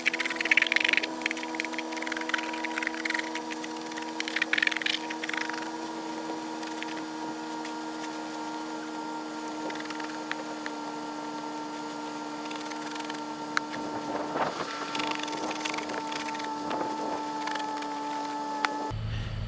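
A steady mechanical hum made of several fixed tones, with brief noisy rustling in the first few seconds. The hum dips slightly in pitch and cuts off just before the end.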